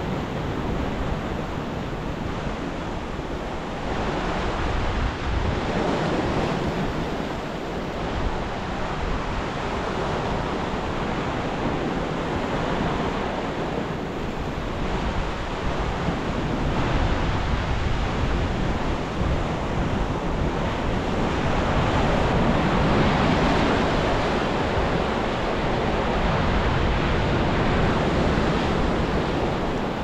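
Ocean surf surging and crashing into a rocky cove: a continuous wash of waves that swells and ebbs, at its loudest about three-quarters of the way through. Wind rumbles on the microphone underneath.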